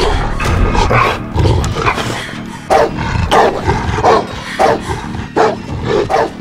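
A rottweiler barking repeatedly, in short loud barks that come about twice a second in the second half, over a low rumble in the first half.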